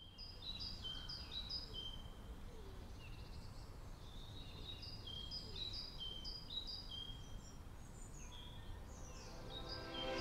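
Several birds singing: many short, high chirps and falling whistled notes overlapping, over a faint low rumble of outdoor ambience. Music begins to swell in near the end.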